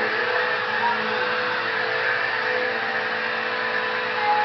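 Vacuum cleaner running steadily: a constant motor whir with a steady hum.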